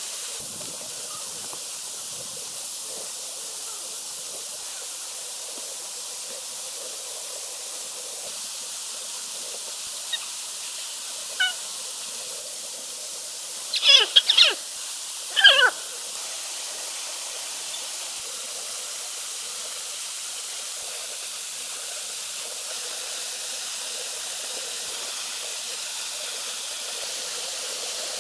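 Steady rushing of a nearby waterfall. A few short, sharp sounds break through around the middle, the loudest two close together about a second and a half apart.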